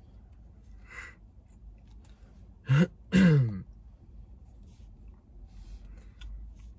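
A man clears his throat twice in quick succession about three seconds in; the second is longer and drops in pitch.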